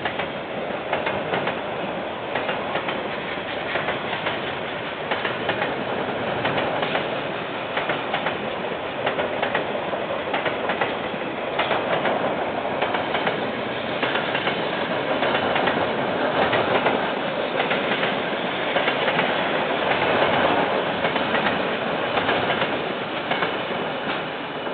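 A KiwiRail train's wagons rolling past, with a continuous rumble and a rapid, irregular clicking of wheels over the rail joints. The sound fades near the end as the train moves away.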